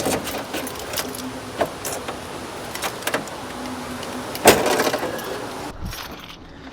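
Off-road recovery gear being handled: scattered knocks and clinks, with one louder clank about four and a half seconds in.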